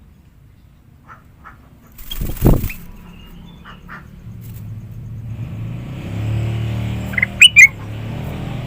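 Kutilang emas (bulbul) giving a few soft call notes, then a quick burst of sharp, loud calls about seven seconds in, the loudest sound. A dull thump comes about two seconds in, and a low engine hum builds steadily from about halfway.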